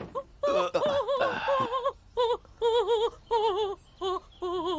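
A woman singing in operatic style: a run of short, separate notes with a wide vibrato, then a longer held note beginning near the end.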